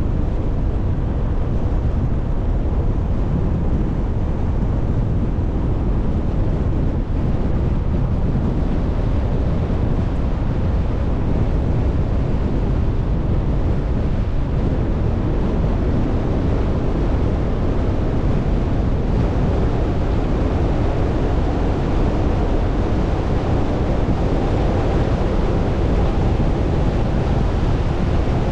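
Steady rush of wind and road noise from a moving car, with wind buffeting the microphone; the noise is heaviest in the low rumble and does not change.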